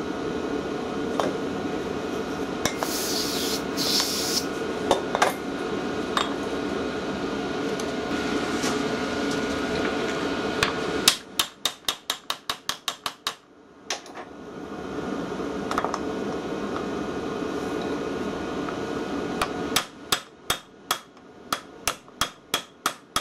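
Two quick runs of light hammer taps on a vintage tractor's fuel injection pump held in a vise, knocking it apart: the first a little past the middle, the second near the end, at several taps a second. Beforehand there is a steady hum from a diesel warm-air heater, with a few scattered metal clicks from the pump being handled.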